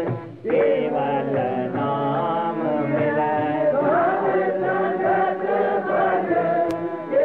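Sikh devotional singing of a Gurbani hymn: a voice chanting a slow melodic line over a steady drone, with a short pause just after the start.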